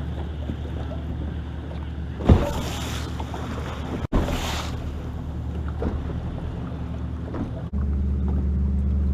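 Boat motor running with a steady low hum. A sharp thump with a brief rush of noise comes about two seconds in, and a second rush about four seconds in. The hum steps up louder near the end.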